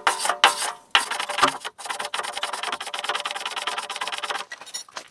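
Wire brush scrubbing rust off the steel rear wheel hub in quick back-and-forth strokes. The strokes come in short bursts at first, then settle into a fast, even scrub about two seconds in that stops shortly before the end.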